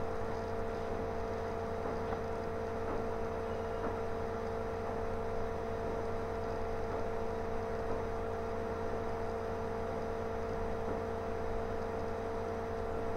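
Steady electrical hum with one strong constant tone and fainter tones above and below it, unchanging throughout.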